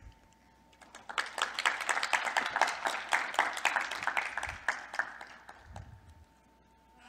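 Audience applauding, starting about a second in and dying away after about five seconds.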